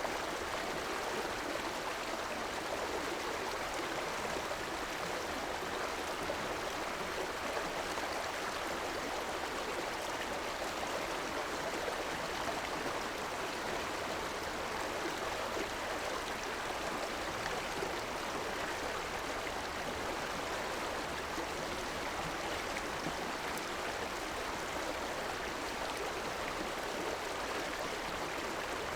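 River water flowing over rocks: a steady rushing and burbling.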